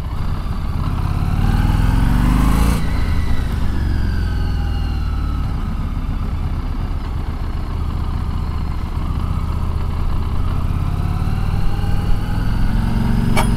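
Harley-Davidson motorcycle's V-twin engine under way: it revs up for about two and a half seconds, drops off sharply as the throttle is closed for braking, runs lower and fairly steady, then revs up again near the end. A single sharp click comes just before the end.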